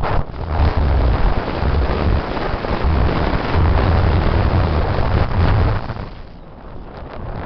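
Heavy wind buffeting and rumble on the microphone of a camera riding on a moving vehicle at road speed. It eases off briefly about six seconds in, then builds again.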